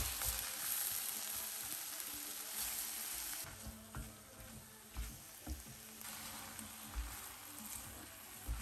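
Chopped carrot, onion and minced beef sizzling in a frying pan as a nylon spatula stirs and scrapes them, with a few soft knocks of the spatula against the pan.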